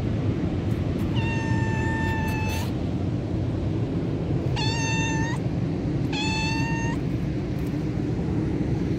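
Tortoiseshell cat meowing three times in a high, steady pitch. The first meow lasts about a second and a half, and two shorter ones follow close together. A steady low rumble runs underneath.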